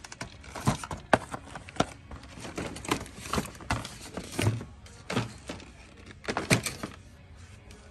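A string of irregular knocks and clicks, a dozen or so, with the loudest about a second in and again near the six-and-a-half-second mark.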